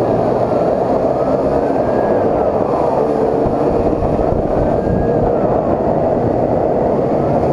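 Police motorcycle running at road speed, about 50 km/h, its engine noise mixed with heavy wind rush at the bike-mounted camera. A siren wails up and down faintly over it, rising and falling every second or two.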